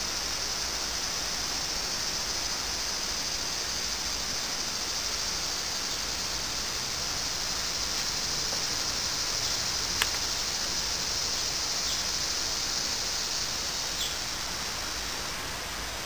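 Steady outdoor background hiss with a high, even drone that swells partway through and fades again, and one sharp click about ten seconds in.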